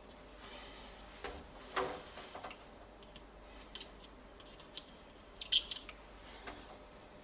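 Scattered small clicks and taps from handling a small circuit board clamped in a metal bench vise, with a quick cluster of clicks about five and a half seconds in.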